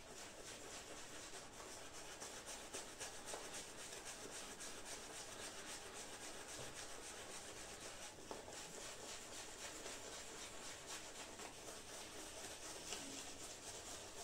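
Maggard's shaving brush scrubbing lather over a bearded face: a continuous soft, wet rubbing made of many quick strokes. The soap is lathering easily.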